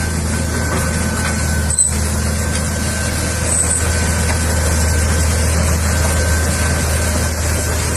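CAT 320C excavator's diesel engine running steadily: a low drone with a faint, steady high tone above it, briefly dipping about two seconds in.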